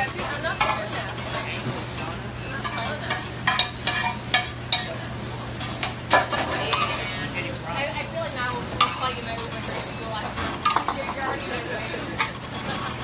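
Busy restaurant kitchen: metal pans and utensils clattering in many short, irregular strikes, with sizzling from pans on the stove over a steady low hum.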